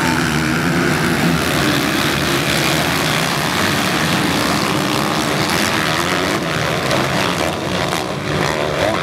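Many motocross bike engines running together as the pack races along the track, blending into one loud, steady drone.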